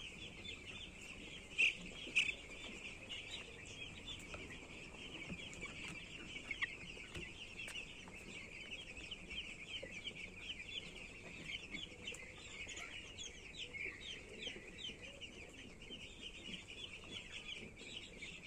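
A flock of chicks peeping in a dense, unbroken chorus of many overlapping short calls, with two louder peeps about one and a half and two seconds in.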